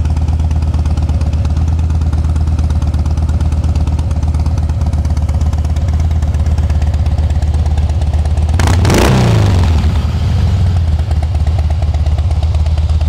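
2010 Harley-Davidson Heritage Softail Classic's balanced Twin Cam 96 V-twin idling steadily through aftermarket slip-on mufflers. About nine seconds in, one quick blip of the throttle makes the note jump and then fall back to idle.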